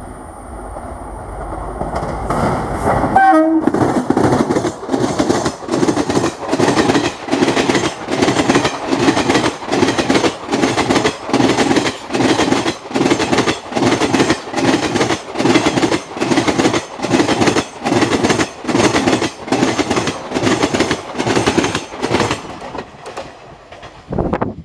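Express train hauled by an electric locomotive passing close by at about 80 km/h: the noise builds as it approaches, a brief tone falls in pitch as the locomotive goes by about three seconds in, then the coach wheels beat a steady clickety-clack over the rail joints, about three beats every two seconds, until the last coach is past and the noise drops away near the end.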